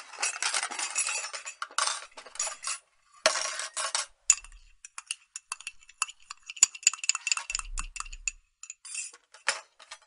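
Clinking and clattering of small hard objects: a dense clatter for about the first four seconds, then scattered sharp clinks.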